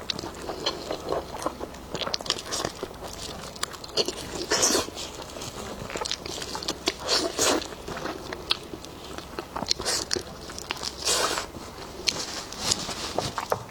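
Close-miked eating of spicy lamb ribs: biting and chewing meat, with irregular crunches and wet clicks and a few louder bites.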